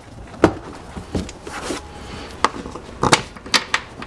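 Plastic cargo-area sill trim panel being pressed home by hand, its push-in clips snapping into place with a series of sharp clicks and knocks.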